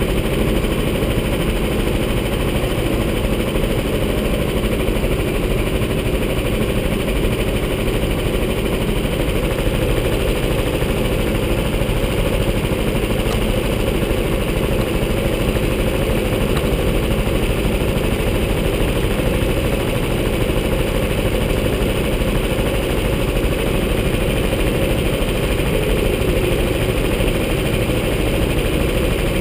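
Rental go-kart engine running steadily, heard from the driver's seat, with no revving or speech.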